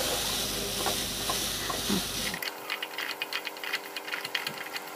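Diced carrots and beans sizzling in oil in an aluminium kadai while a wooden spatula stirs them, scraping and tapping the pan. About two and a half seconds in, the sound turns thinner, a run of quick clicks and taps over a faint hiss.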